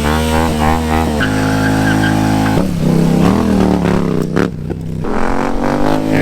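Nissan Skyline R33's engine running under way, holding a steady note for a moment, then changing pitch with a brief break about four and a half seconds in, and climbing again near the end.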